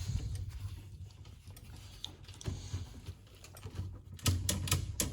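Light handling noise, then near the end a quick run of about five or six sharp clicks as the shifter cable parts are worked into place.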